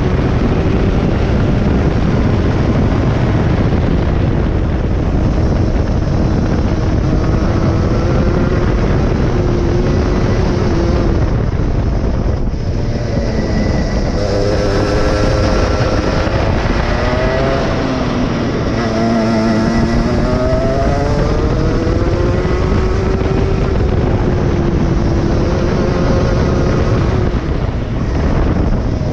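23 hp go-kart engine running hard through a lap, its pitch falling and rising as it slows for corners and accelerates out. The deepest drop and climb comes about two-thirds of the way through.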